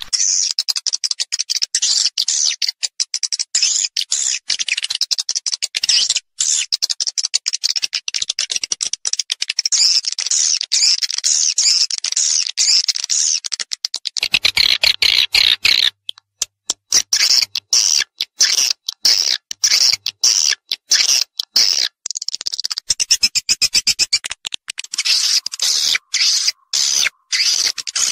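Recorded edible-nest swiftlet calls of the kind played in swiftlet houses to attract the birds: dense, rapid, high-pitched twittering chirps. About halfway through, the chirping becomes choppier, with short breaks between bursts.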